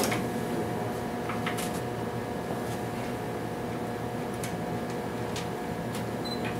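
Steady hum of lab equipment with a few light clicks and taps as a multimeter and its test leads are handled on a bench. One sharper click comes right at the start.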